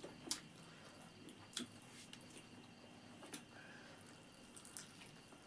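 Faint sounds of eating rice and curry by hand: a few scattered soft clicks and smacks of fingers in the food and of mouth and chewing, spaced about a second or more apart.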